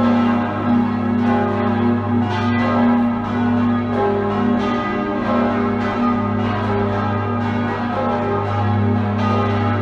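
Full peal of six swinging church bells ringing together, from the deep 1781 Rageth tenor bell up to the small treble. The strikes overlap in a dense wash of bell tones over a steady deep hum.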